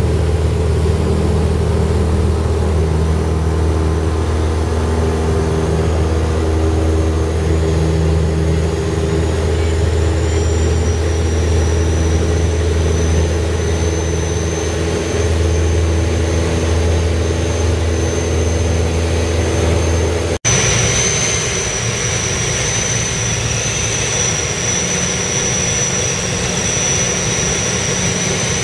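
Single-engine Piper light aircraft's piston engine and propeller running steadily at high power during the takeoff run, heard inside the cockpit, with a deep hum and a thin high whine. About 20 seconds in the sound cuts abruptly to the same engine droning in flight.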